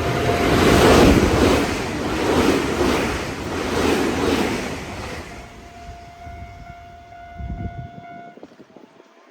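Nankai Railway train passing, its wheels clacking in a regular rhythm, loudest about a second in and then fading away. A level-crossing alarm's steady electronic tones sound over it and cut off about eight seconds in.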